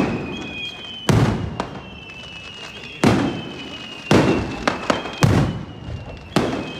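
Aerial fireworks going off: five loud bangs about a second apart, each trailing off, with smaller pops and crackles between them. A steady high-pitched tone runs underneath.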